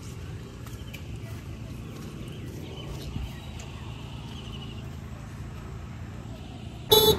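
A steady low rumble with a few faint clicks, then a vehicle horn honks loudly just before the end.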